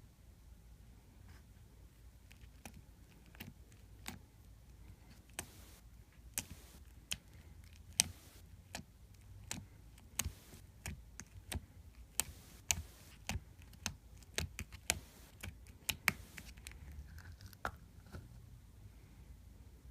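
Glitter slime being worked by hand, giving off irregular sharp clicks and pops, at times several a second.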